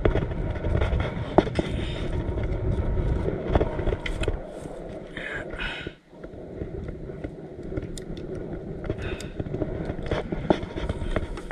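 Wind buffeting the microphone, a loud uneven low rumble that drops away briefly in the middle, with a few sharp clicks from the spinning rod and reel being handled.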